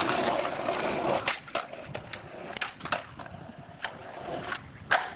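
Skateboard wheels rolling on concrete, loudest in the first second, with several sharp clacks of the board.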